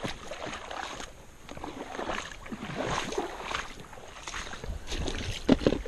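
Creek water sloshing and splashing irregularly as someone wades through it.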